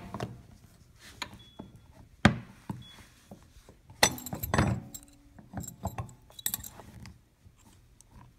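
Light clicks, clinks and knocks of a dispense handle being worked into the plunger of a Crathco barrel freezer's clear plastic valve body, with a sharp click about two seconds in and a cluster of clinks around four seconds in.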